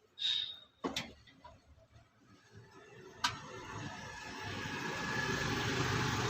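Electric fan switched on with a sharp click about three seconds in, then its motor and blades spinning up, the whirring air noise and low motor hum rising steadily. Before that come a few short clicks and handling sounds.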